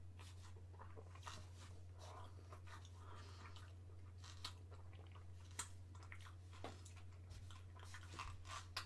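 Faint chewing of a chocolate cream egg: irregular soft mouth clicks and smacks over a steady low hum.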